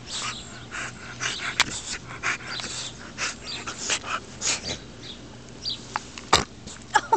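Dogue de Bordeaux puppy huffing and snuffling in short, irregular breaths, a few a second, as it plays in the grass mouthing a hand. Two sharp clicks come through, about a second and a half in and near the end.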